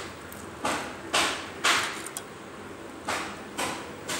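Short scraping swishes of a ladle in a steel pot as sugar syrup is scooped and poured over fried milk buns: three quick swishes about half a second apart, a pause, then three more.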